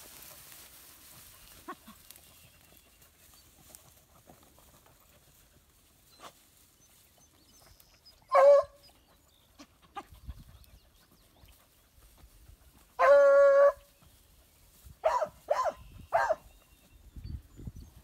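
Hound baying while trailing on scent: a short bay about eight seconds in, one longer drawn-out bawl a few seconds later, then three short barks in quick succession.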